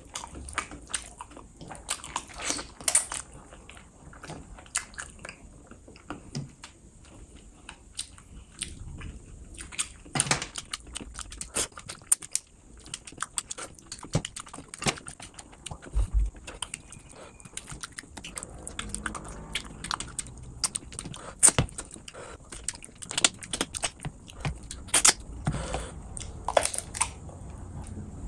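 Close-miked eating of rice and fish curry by hand: chewing with wet, irregular smacking and clicking from the mouth, and the squish of curry-soaked rice being squeezed in the fingers.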